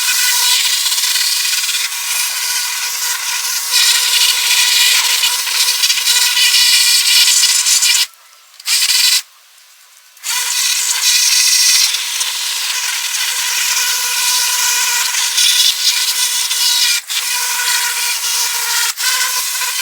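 Pressure washer spraying a water jet onto a truck's bodywork: a steady hissing spray with a constant whine under it. The spray stops twice briefly, about eight and nine seconds in.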